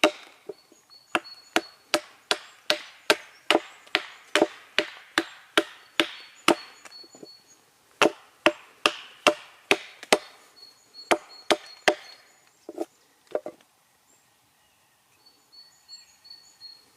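Hatchet chopping a small piece of wild cherry, sharp strikes at about two to three a second with a short pause midway, stopping a little over two-thirds of the way through. Birds sing faintly, and they are heard alone at the end.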